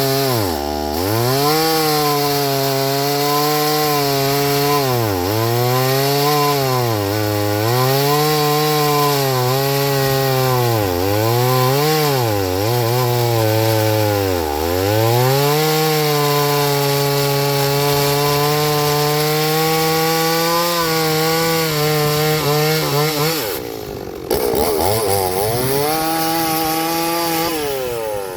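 Chainsaw cutting wood. The engine pitch drops again and again as the chain bogs down in the cut, then climbs back up. Near the end it breaks off briefly and starts running again.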